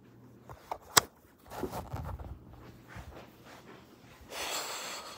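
A phone being handled close to its microphone: a sharp knock about a second in, then rustling and low thumps, and a short breathy exhale near the end.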